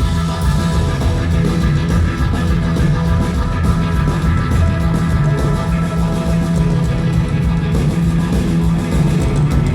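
Live rock band playing: guitar, bass and drums at full volume, sustained low notes under a steady beat of drum hits.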